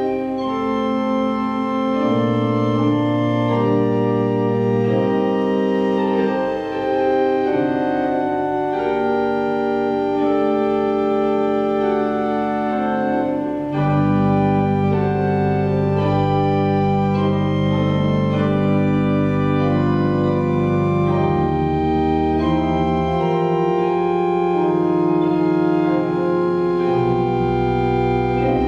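Organ playing slow music in long held chords, with deep bass notes coming in about halfway through.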